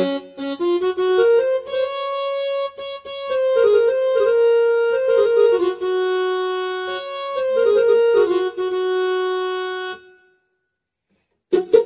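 Casio CTK-2550 electronic keyboard playing a simple single-line melody in a sustained tone of held notes. It stops about ten seconds in, and after a brief silence a new tone with quick, short notes starts near the end.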